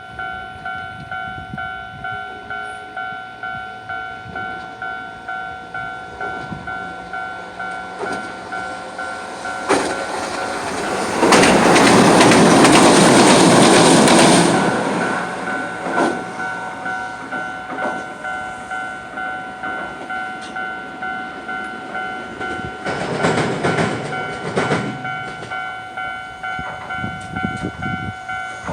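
A level-crossing warning bell rings steadily in a quick, even repeating ding while two trams, a Hiroden 3950-type and a 5000-type, cross over. The first passes loudest a little before halfway, a rush of wheels on rail lasting about three seconds, and the second passes more quietly later on, with sharp clicks of wheels over rail joints.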